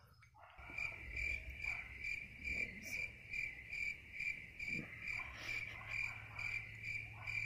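Chirping-crickets sound effect: a steady high chirp pulsing about twice a second, cutting in and out abruptly. It is the comic cue for an awkward silence while someone fails to come up with an answer.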